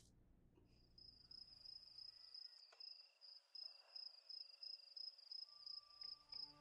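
Faint crickets chirping as a thin, steady, pulsing high trill over near silence, with soft music coming in near the end.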